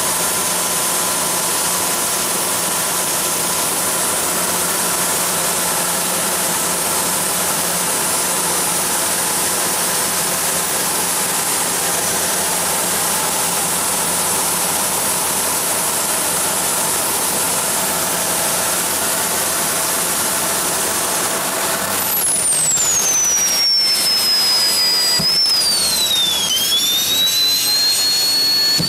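Gas turbine engine of a Honda Z jet car running on Jet B fuel, heard from inside the car: a loud, steady rushing drone. About two-thirds of the way through the sound changes and a high turbine whine sweeps steeply down, wavers and dips, then rises again near the end as the spool speed changes.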